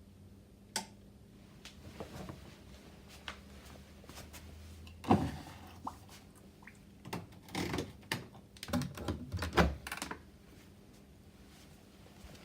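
Whirlpool washing machine near the end of its cycle: a low hum stops about five seconds in, amid scattered clicks and knocks, with a cluster of clatter and thumps a few seconds later.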